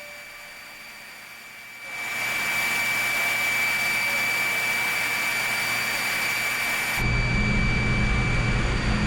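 Steady industrial machinery noise with a constant high whine. It grows louder about two seconds in, and a deeper hum joins near the end.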